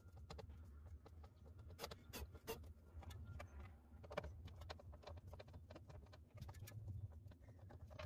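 Near silence with faint, scattered clicks and taps of hands working on a 1993 Toyota Corolla's plastic door-panel armrest trim, over a low steady hum.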